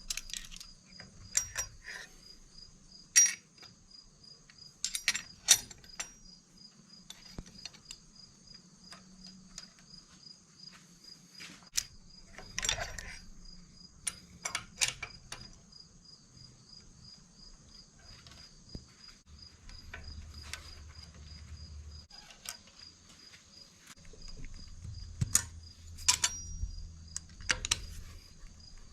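Scattered metallic clicks and clinks of hand tools working a cylinder head's valve springs, retainers and stem seals, a few of them sharp and loud. A steady, high-pitched trill runs underneath.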